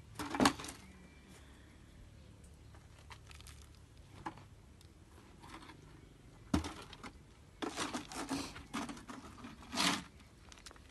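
Scattered scrapes and knocks from concrete being worked by hand while a floor is cast. The loudest comes about half a second in, and a cluster follows between about six and ten seconds in.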